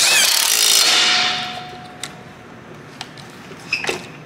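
Cordless impact wrench hammering a bolt tight: one loud burst of a little over a second with a steady motor whine under it, dying away, then a few light clicks.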